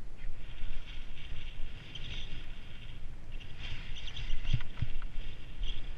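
Hiss of sliding downhill over snow, with wind rumbling on the microphone and a couple of short knocks about four and a half seconds in.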